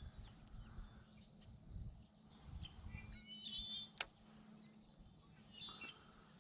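Faint bird chirps and a short trilled call from the reeds, with one sharp click about four seconds in. A low rumble fades out after the first couple of seconds.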